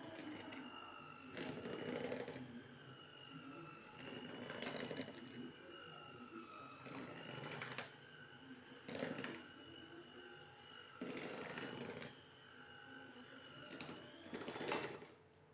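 Electric hand mixer running at medium speed, its beaters churning a thick cake batter of creamed margarine, egg and flour in a plastic bowl. It makes a steady motor whine with a knock every couple of seconds. The motor cuts out just before the end.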